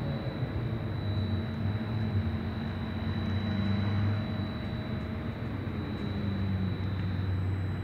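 Steel bascule drawbridge's lift machinery running as the raised leaf lowers: a steady low mechanical hum with a thin high whine on top that fades out near the end.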